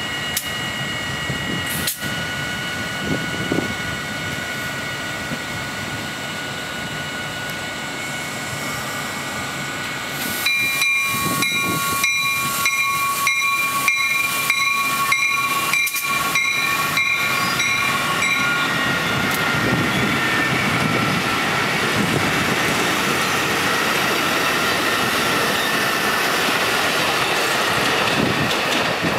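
Metra Electric Highliner bilevel electric multiple-unit train rolling past as it slows into the station. First comes a steady high whine, then wheels clicking over rail joints about twice a second for some eight seconds, louder, then a steady rushing noise as the last cars go by.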